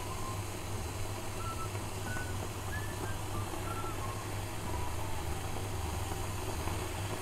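Chicken frying in a pan on an electric cooktop: a faint even sizzle over a steady low hum.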